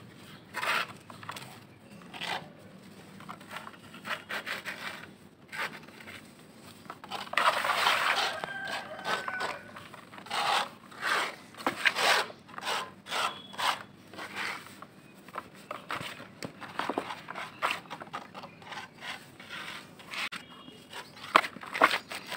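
Dry soil being crumbled and rubbed by hands, with fingers digging into loose dry dirt in a plastic tub: irregular dry crunching and rustling. It is loudest in a longer crumble about eight seconds in.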